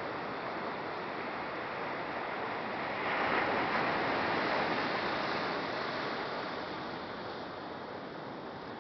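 Ocean surf breaking on a sandy beach: a steady rush, with one wave's break swelling about three seconds in and fading away over the next few seconds.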